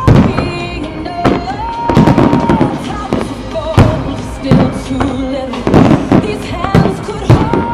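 A fireworks display going off in quick succession, with sharp bangs about twice a second, over loud music.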